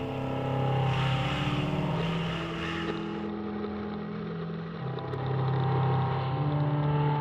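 Motorcycle engine running as the bike rolls along a gravel track, its pitch stepping up and down a few times as the revs change.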